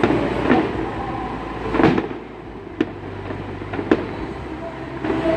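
Aerial fireworks shells bursting in the distance: a series of bangs, the loudest about two seconds in, followed by two sharp cracks, over a steady low rumble.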